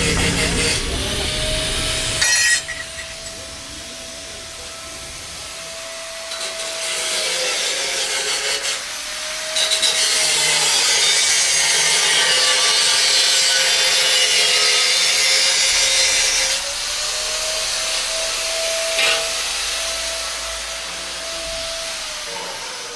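Electric grinder working metal: a harsh grinding hiss over a steady motor whine that sags and recovers as the tool is pressed in. It is lighter for a few seconds after the start and heaviest in the middle.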